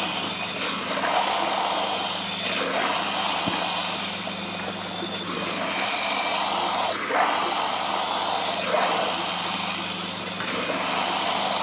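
Stainless-steel colloid mill running steadily: a motor hum under a broad grinding hiss as wet grain is fed through it, with irregular swells every second or two.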